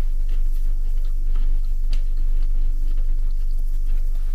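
Steady low hum filling a quiet room, with a faint click about two seconds in.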